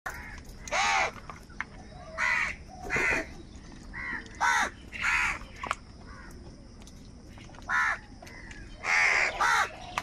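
House crows cawing: a string of about eight short, harsh caws at uneven gaps.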